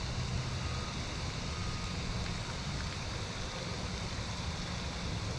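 Steady low outdoor background rumble with a light hiss and no distinct event, plus a couple of faint brief high tones about one and two seconds in.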